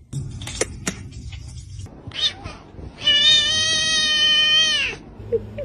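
A few sharp clicks, then a cat's long meow lasting about two seconds, held at a steady pitch and dipping at the end.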